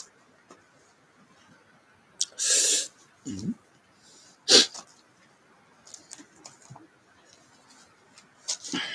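A man's throat and nose noises: a loud sneeze-like snort about two and a half seconds in, a short low grunt, then a sharp cough about a second later, followed by a few faint clicks.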